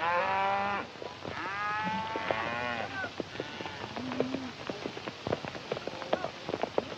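A horse whinnying: a short call, then a longer one with a wavering pitch. It is followed by an irregular patter of hoofbeats and footsteps on dirt.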